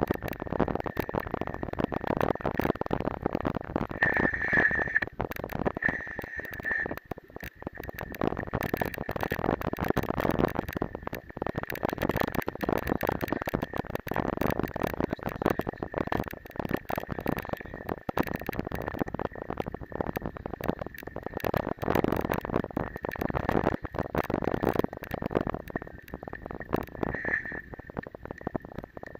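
Mountain bike riding over a rough, muddy forest track, heard from a bike-borne camera: continuous rattling and knocking with rushing noise. Brief high squeaks come a few seconds in and again near the end.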